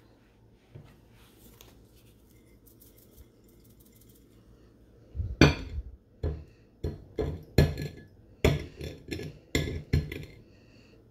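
Glass goblet knocking and clinking against a plate as its chamoy-coated rim is pressed and turned in chili powder. Quiet at first, then a dozen or so irregular knocks starting about halfway through.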